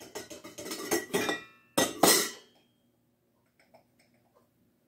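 Metal measuring spoon and funnel clinking and scraping against glass mason jars as dried ingredients are spooned in, a run of small clinks followed by one louder scrape about two seconds in.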